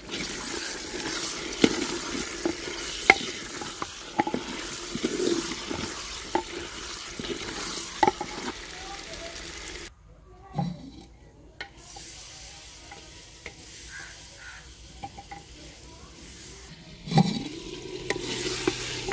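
Eggplant frying in masala in a clay pot, sizzling, stirred with a wooden spoon that knocks and scrapes against the pot. The sizzling drops away for a few seconds about halfway through, and returns near the end after a louder knock.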